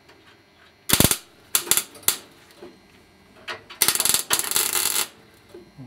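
Electric arc welder tack-welding a steel floor patch: short sputtering, crackling bursts of the arc about a second in and again around two seconds, then a longer weld of a little over a second near the end.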